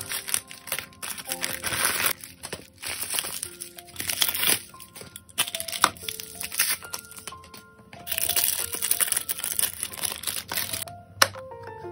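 Plastic packaging crinkling and crackling as a bag is cut open with scissors and plastic-wrapped thermal paper rolls are handled, in several loud stretches, with one sharp click near the end. Background music plays throughout.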